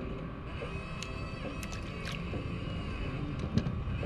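A few light clicks and taps as a fish is handled and unhooked on a fishing kayak, over a steady background rumble and hiss.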